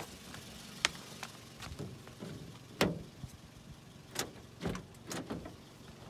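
A few sharp clicks and knocks at irregular intervals over a faint low rumble.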